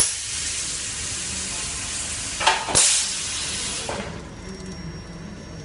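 A hiss of compressed air that starts abruptly and loudly, runs for about four seconds with two louder blasts a little past halfway, then stops, leaving a low machine hum. It is air venting from the pneumatic cylinders of a cheese-wheel positioning machine.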